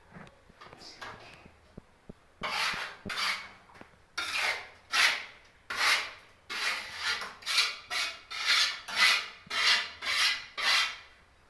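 A hand tool scraping or rubbing a hard surface in quick, even strokes, about two a second: faint at first, then loud from about two seconds in.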